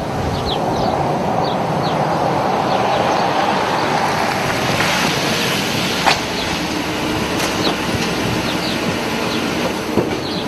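Steady vehicle noise, a rumble with a broad hiss that swells in the middle, with short high chirps scattered through it and a sharp click about six seconds in and again near the end.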